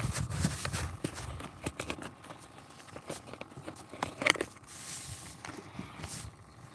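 Scattered light knocks and taps at an uneven pace, with one sharper knock about four seconds in.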